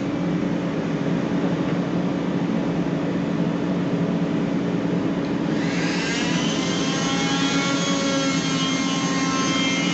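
Palm orbital sander running steadily on a wooden stair tread. About halfway through, a higher whine joins in, rising in pitch and then holding steady.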